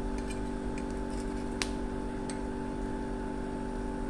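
Chestnuts roasting over heat: a few sparse, sharp ticks, one louder about one and a half seconds in, over a steady mechanical hum.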